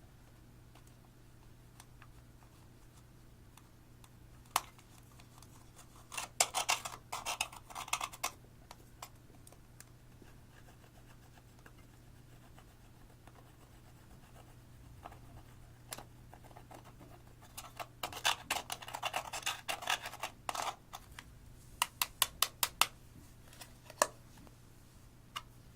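Clear slime with eyeshadow being worked by hand, giving two clusters of crackling clicks and scratches about two seconds each, followed by a run of sharp single clicks near the end.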